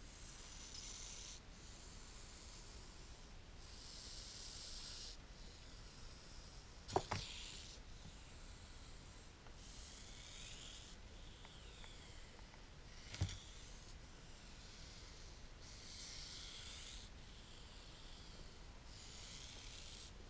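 Hognose snake hissing over and over, each hiss about a second long: the defensive hiss of an agitated snake. Two sharp knocks cut in, about six seconds apart.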